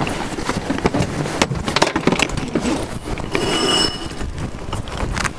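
Sailboat sheet winch being worked, with irregular clicks and knocks and a short high squeal of line on the winch drum about three and a half seconds in.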